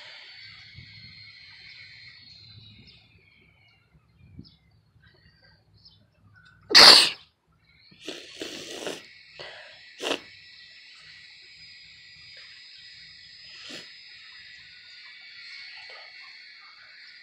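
One loud human sneeze about seven seconds in, followed by a couple of shorter, quieter sounds. Behind it runs a steady high-pitched insect drone that drops away for a few seconds before the sneeze.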